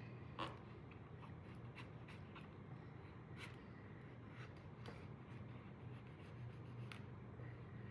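Faint scratching and a few light clicks as a knife cuts open the top of a passion fruit's rind.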